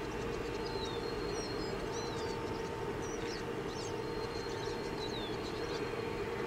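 Small birds chirping in short, quick calls that slide up and down in pitch, over a steady low drone.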